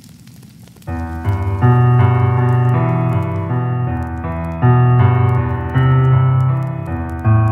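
Song intro: faint crackling noise, then sustained keyboard chords come in loudly about a second in and change every second or so.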